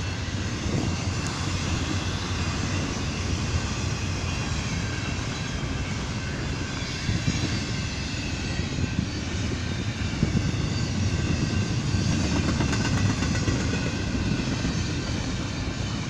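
Double-stack container well cars of a freight train rolling past: a steady rumble of steel wheels on rail.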